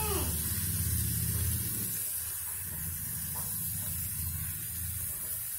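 Steady low rumble with a hiss from sweet corn and tomato curry cooking in an aluminium kadai on a gas stove. The rumble eases about a third of the way in.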